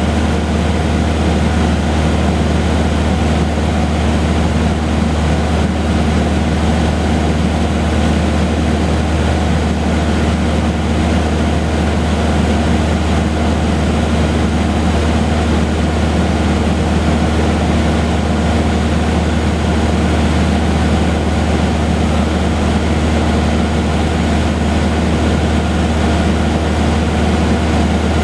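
Steady drone of a Cessna 150H in flight, heard inside the cabin: the four-cylinder Continental O-200 engine and propeller running at a constant setting, with rushing air noise over the airframe.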